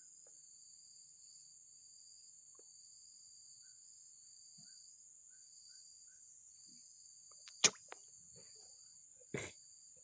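Steady high-pitched insect chirring, with a softer pulsing trill beneath it. Two sharp clicks or knocks come near the end, the first the loudest.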